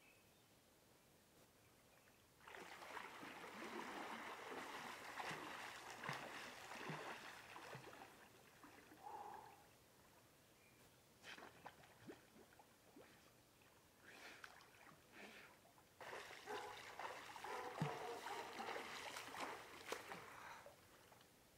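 Faint water splashing and trickling from a person swimming, in two longer stretches, about two seconds in and again from about sixteen seconds, with a few short splashes between.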